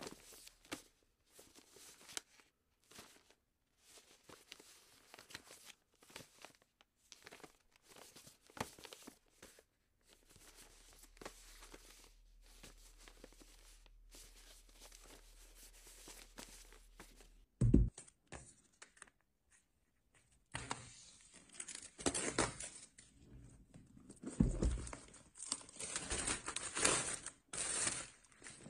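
Unboxing handling noise: cardboard box and paper packaging rustling and tearing in short scrapes. About two-thirds of the way through there is a single sharp thump, and the handling grows louder and busier after it.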